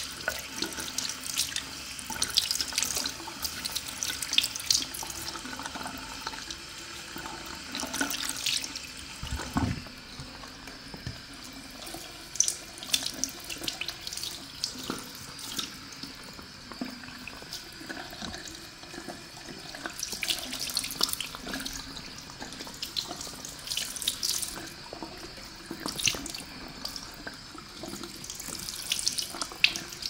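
Tap water running and splashing, with irregular sharp splashes and small clicks throughout, as water is run over hair to rinse out conditioner.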